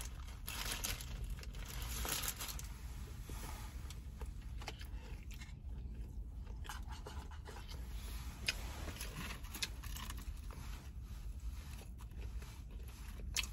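A person biting and chewing a chicken croissant sandwich, quietly, with small wet mouth clicks throughout. The paper wrapper crinkles in the first couple of seconds.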